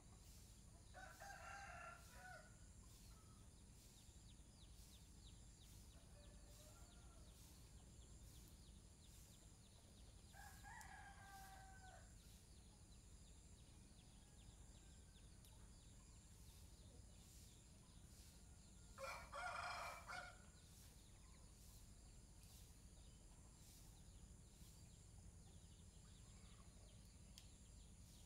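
A rooster crowing three times, faint, roughly nine seconds apart, the third crow the loudest, over a steady low background hiss.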